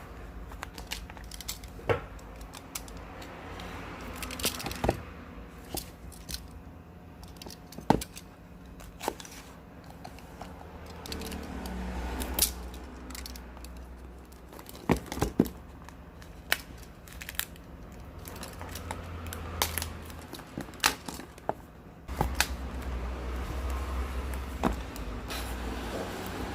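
Handling noises from unboxing a Tecno Pop 6 Pro phone: packaging rustling and tearing, with many scattered clicks and taps, and a low rumble at times.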